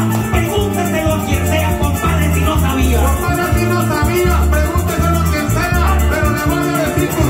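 Live Venezuelan llanero (joropo) music: a harp, a cuatro and an electric bass play with maracas shaking a steady, fast rhythm. Later on, a man sings a verse over it through a microphone.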